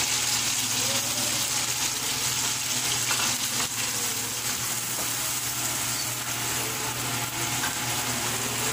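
Finely chopped onion sizzling in hot oil in a metal kadai, with a flat spatula stirring and scraping it against the pan now and then.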